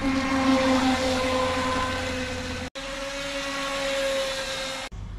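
RC speedboat's brushless electric motor running at speed, a steady whine over the hiss of water spray. The sound drops out for an instant about two and a half seconds in, then resumes.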